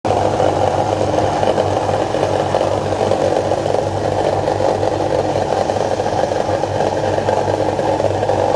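Electric soybean grinding machine running steadily, a continuous motor hum and whir of the grinding wheel.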